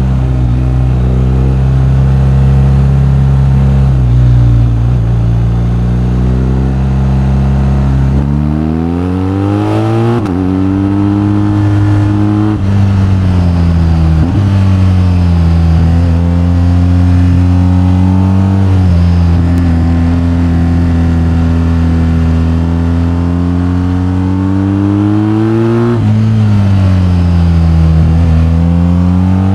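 BMW R1250GS's boxer twin engine under way: it runs at a steady pitch at first, then the revs climb from about eight seconds in, ease back, hold, and climb again. A sudden drop in pitch comes near the end before the revs rise once more.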